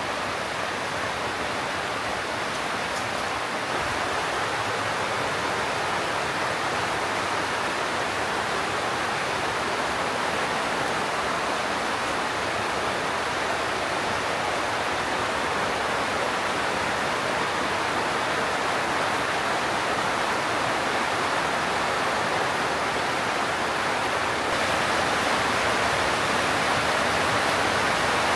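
Heavy rain pouring down: a steady, even rush of water noise, a little louder about four seconds in and again near the end.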